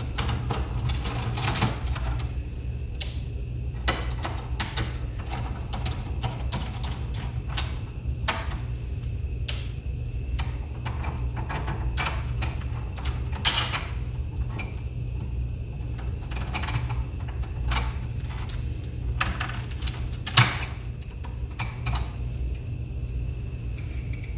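Irregular clicks and taps of a hand screwdriver working screws and plastic parts being handled on a DVD player's disc drive mechanism, with a couple of sharper clicks about halfway and later. A steady low hum runs underneath.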